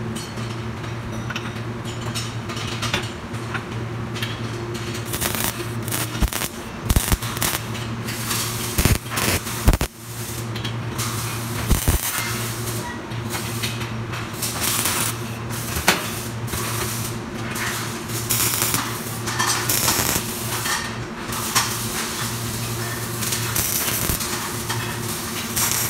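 CO2 MIG welding on a steel tube seat-bracket frame: the arc crackles and hisses in runs, over a steady low hum. Several sharp knocks come in the first half as the parts are handled in the jig.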